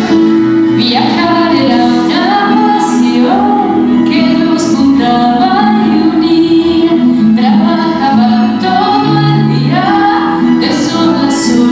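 A woman singing a song from a children's stage musical into a microphone, over instrumental backing music.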